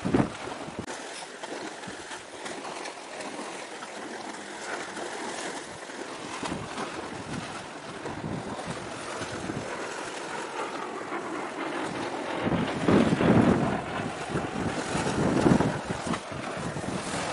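Wind buffeting the microphone over open sea, with louder gusts about three-quarters of the way through, over a steady wash of waves.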